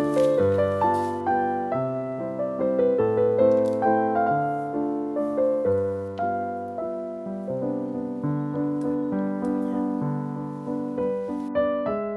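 Background piano music: single notes and chords struck at an even pace, each ringing and fading before the next.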